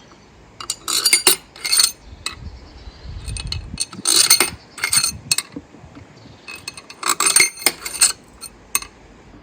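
Metal hand tools and small steel parts clinking against each other in scattered clusters of sharp clicks, with a soft low rumble between about two and four seconds in.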